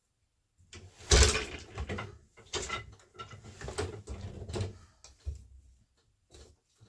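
Wooden knocks and clunks of an 8-shaft loom being worked, the beater pulled against the woven cloth. A string of sharp knocks, the loudest about a second in, thinning out after about five seconds.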